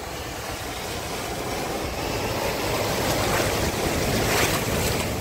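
A small car ploughing through deep flood water, its bow wave and front tyres throwing up spray: a rushing, splashing wash that builds louder as the car comes up close.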